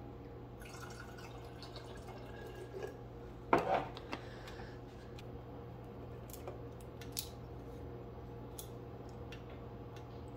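Glass mason jar being handled and set down, with a sharp knock about three and a half seconds in. Scattered small clicks and drips follow as the potassium-hydroxide electrolyzer jar bubbles, over a steady low hum.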